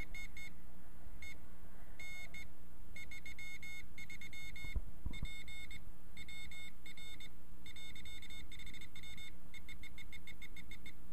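Morse code beacon message beeping from a homebuilt CW keyer's small side-tone speaker, a high keyed tone in repeating groups of dits and dahs. The keying speed is being turned up until the code runs far too fast for a beacon. A couple of soft knocks come about halfway through.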